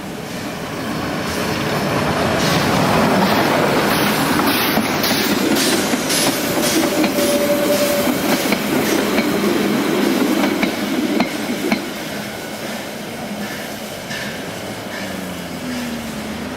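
Narrow-gauge train passing close by, its wheels clicking over the rail joints. It builds up about two seconds in, is loudest through the middle and fades after about twelve seconds.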